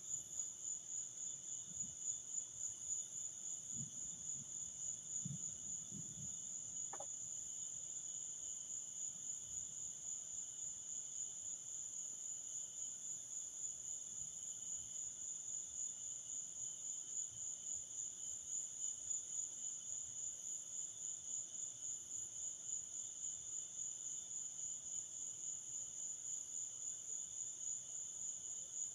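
A chorus of crickets trilling steadily at night, a high fast-pulsing trill with a fainter lower one beneath it. A few soft low thumps come about four to six seconds in.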